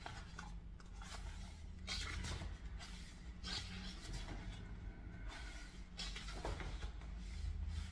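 Faint rustling of a large photobook's pages being turned by hand, several soft page turns.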